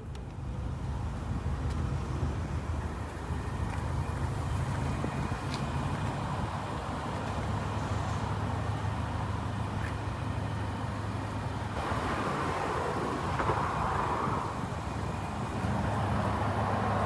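BMW Z4 35is driving at a steady pace, heard from inside the cabin: a low, even engine drone with tyre and road noise. The noise swells briefly about twelve seconds in.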